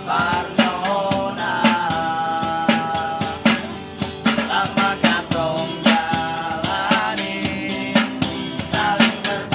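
A street busker singing over music with a steady drum beat, holding long wavering notes.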